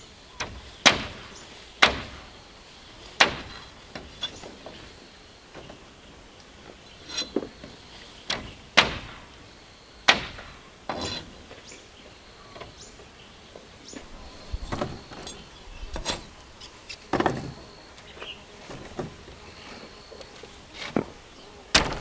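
A series of sharp, irregular knocks, about one every second or two with a short pause midway, like blows of a tool on wood, over faint high chirping in the background.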